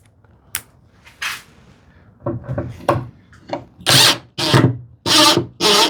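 Impact driver sinking a screw into wood, run in short pulses of the trigger, roughly two bursts a second. The bursts get louder from about two seconds in, the driver being fed gently so the screw is not over-tightened.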